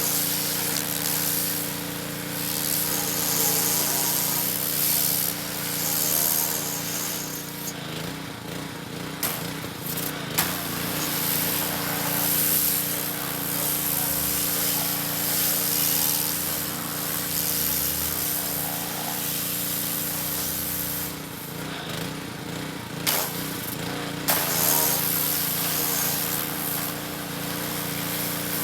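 Pressure washer running steadily, its motor humming under the loud hiss of the spray blasting dirt and old undercoating off a truck frame, with a few sharp clicks along the way.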